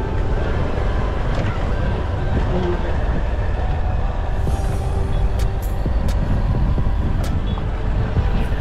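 Wind buffeting the microphone while riding a Honda XR190L motorcycle, its single-cylinder engine running steadily underneath. A few light ticks come in the second half.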